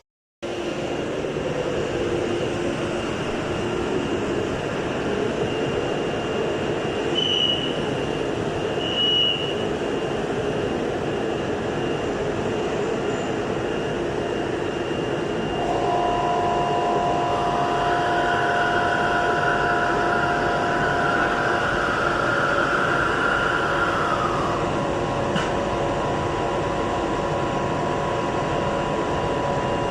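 CNC router running as it cuts grooves in wooden panels: a steady mechanical drone with whining tones, and a higher whine rising in from about halfway through that fades after several seconds.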